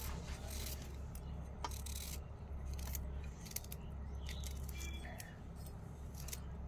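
Small kitchen knife slicing ivy gourd (kundru) held in the hand, a run of irregular crisp cuts and clicks, over a steady low hum.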